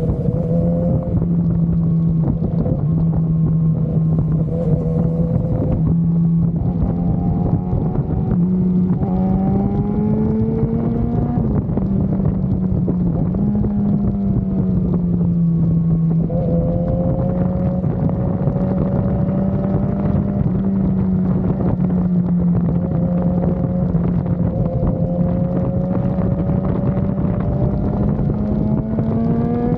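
BMW S1000RR's inline-four engine running at a steady cruise, its pitch easing up and down a little with the throttle and dipping briefly about a dozen seconds in. Wind rushes over the microphone throughout.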